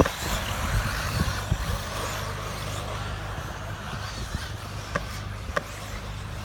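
1/8-scale electric off-road RC buggies racing on a dirt track, their motors and tyres making a steady noisy running sound. A few sharp knocks cut through, the loudest right at the start and two more about five seconds in.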